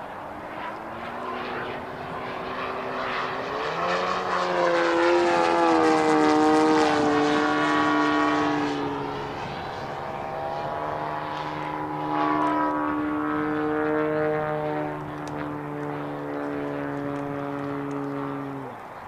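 Giant-scale CAP-232 RC aerobatic plane in flight, its 3W 684 engine and propeller running through throttle changes. The note climbs in pitch and loudness about four seconds in, sinks slowly in pitch over the next few seconds, swells again around twelve seconds, and cuts off abruptly just before the end.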